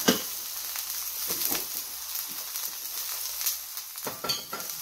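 Rib steak searing in a hot, fat-coated cast-iron skillet: steady sizzling with scattered crackles, and one sharp click right at the start.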